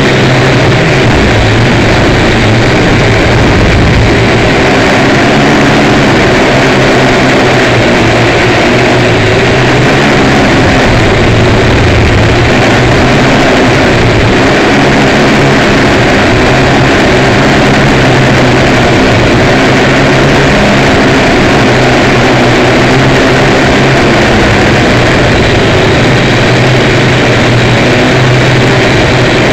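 Steady electric motor hum from a remote-controlled model, picked up by its onboard Mould King 33041 camera, with gusty wind rushing over the small microphone. The hum holds a low pitch with overtones that waver slightly.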